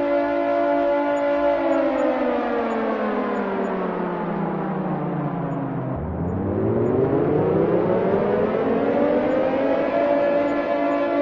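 Air raid siren holding a steady tone, then falling in pitch over about four seconds and climbing back up to its steady tone near the end.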